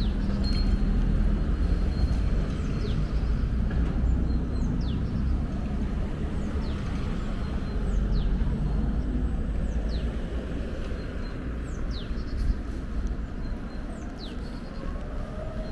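Low rumble of road traffic, with a small bird repeating a short falling call about once a second.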